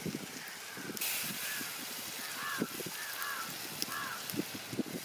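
Birds calling outdoors with short arched chirps, often in pairs, repeated several times, over light knocking and scraping of a spatula stirring curry in a cooking pot.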